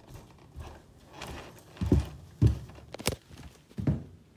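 Footsteps in heavy boots walking over a floor, with a few heavy thuds and a sharp click in the second half, then handling noise as the camera is picked up.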